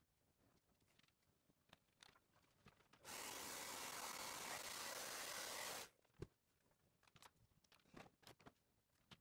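Handheld electric blower (hair dryer or heat-gun type) switched on for about three seconds, a steady rush of air blowing onto wet paint, then cut off abruptly; a single sharp knock follows, with faint taps and rustles of handling around it.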